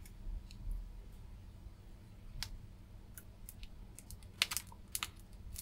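Faint, irregular small clicks and ticks while a circuit board is desoldered on a molten solder pot, bunched together for a moment near the end, over a low steady hum.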